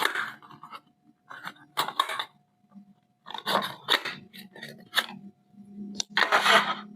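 Packaging being handled and opened by hand: irregular bursts of scraping, rustling and clicks in about four clusters, the loudest near the end. A faint steady hum runs underneath.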